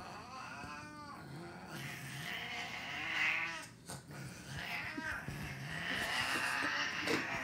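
Cats yowling in several drawn-out, rising-and-falling wails, with rougher, raspier stretches between, as two cats wrestle.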